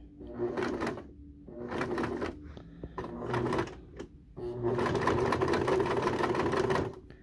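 Home sewing machine stitching through coiled cotton rope, run slowly in three short bursts and then steadily for about two and a half seconds from around four and a half seconds in.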